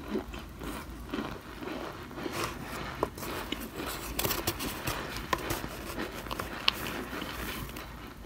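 Chunks of cornstarch being scooped with a spoon and handled in a foil pan, giving a light crunch and squeak with irregular sharp crackles and snaps.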